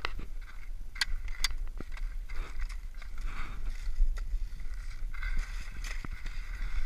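Wind buffeting a GoPro's microphone as a steady low rumble, with a few sharp clicks and a knock as the skier handles and plants his ski poles to push off. From about five seconds in, a hiss of skis sliding and carving on packed snow joins it.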